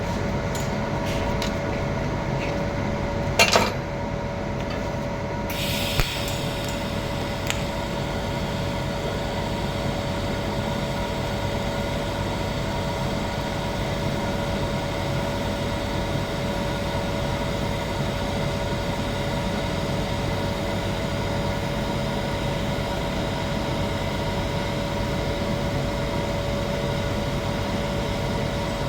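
Electric arc welding on a pipe root pass: a steady hum from the welding setup, a few sharp clicks, then from about five seconds in the continuous hissing crackle of the arc.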